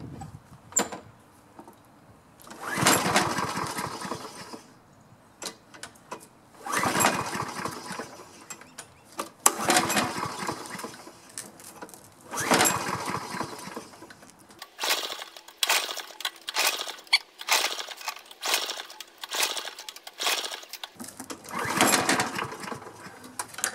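Toro Recycler mower engine cranked over again and again, five tries of a second or two each with clicks and rattles between, never catching. It is a hot engine that will not restart, which the mechanic at first takes for a failing ignition coil.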